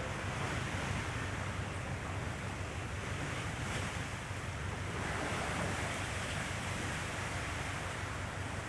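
Wind buffeting the microphone, a steady low rumble over a constant rushing hiss.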